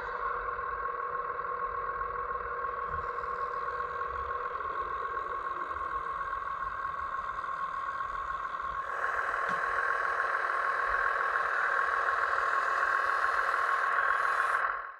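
Electric motor and hydraulic pump of a scale RC construction machine running with a steady whine, getting louder about nine seconds in as the load rises, then fading out near the end.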